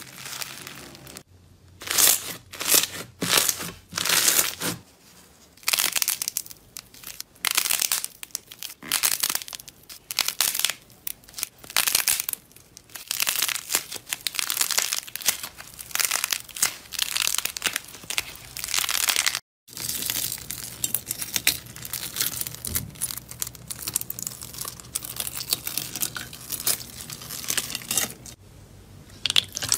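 Hands squeezing, folding and stretching slime, giving irregular bursts of sticky crackling, crinkling and popping, with a brief break about two-thirds of the way through.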